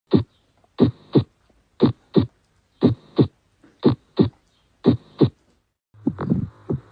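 Heart sounds: a steady lub-dub, each beat a pair of dull thumps about a third of a second apart, at roughly one beat a second. About six seconds in, a different heartbeat begins, with a noisy haze between the thumps.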